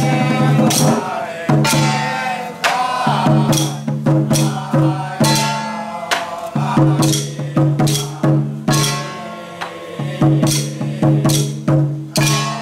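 Taiwanese temple ritual music: a sustained melody or chant made of held notes that break off every second or two, over frequent sharp percussion strikes of drums, cymbals and wood-block-like clappers.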